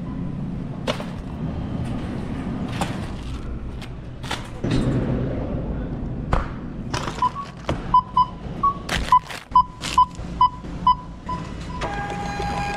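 Knocks and thumps of things being handled, then from about halfway a regular run of short electronic beeps, about two a second, among sharper knocks, ending in a steady held electronic tone near the end.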